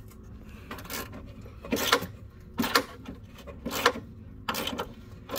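Hands rummaging among wires and cables behind the metal panel of a GMC PD3751 Silversides bus: several short scrapes and knocks of metal and wire, irregularly about a second apart.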